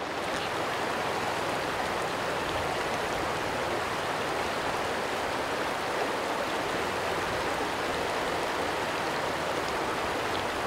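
Steady rush of a shallow river running fast over a rocky riffle.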